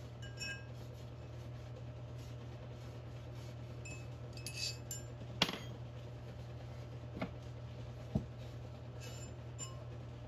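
Light metallic clinks and taps as rust and dirt are cleaned out of the inside of a steel receiver hitch shank with a towel, the sharpest about five and a half seconds in. A steady low hum runs underneath.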